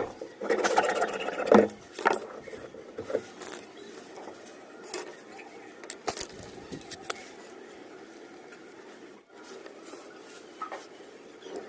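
Hand work on a uPVC pipe union: scattered scrapes and clicks of plastic fittings being handled and worked, busiest in the first two seconds and sparser after.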